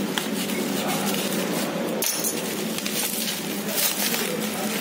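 Plastic bubble-wrap packaging crinkling and rustling as it is cut with a knife and pulled off a small box, with small clicks and scrapes.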